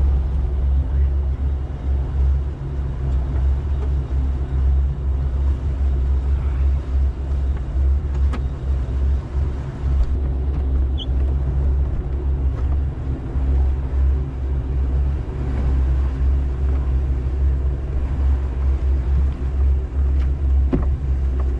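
Motorboat engine running steadily at slow, no-wake cruising speed: a deep, even drone that holds without change.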